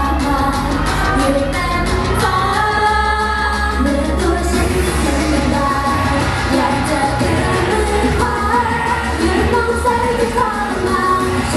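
Female idol group singing a pop song live into microphones over an amplified backing track with a steady beat.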